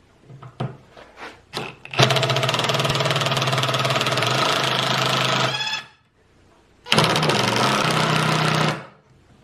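Cordless impact drivers hammering a bit against the head of a small nail: a few light knocks of the bit being set on the nail, then a DeWalt XR impact driver rattling for about four seconds and winding down, which drives the nail in. After a short break, a Makita impact driver rattles for under two seconds.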